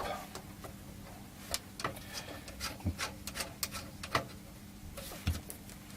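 Scattered small clicks and rattles of multimeter test leads being handled and connected to a bench power supply's output terminals.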